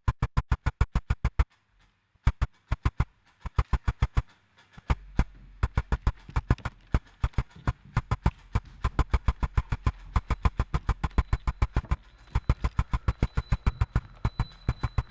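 Electronic sound-art music built from a rapid train of sharp clicks, about eight a second, broken by two short pauses. About five seconds in, a low steady hum enters beneath the clicks, and a faint high steady tone joins near the end.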